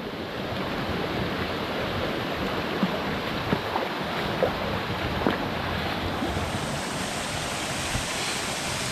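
Steady rush of a rocky mountain river flowing, with a few faint short blips about three to five seconds in.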